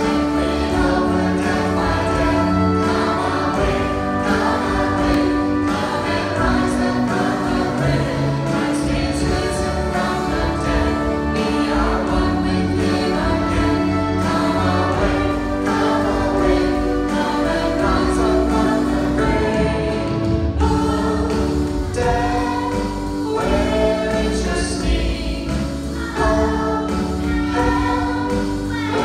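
Children's choir singing an Easter song with instrumental accompaniment.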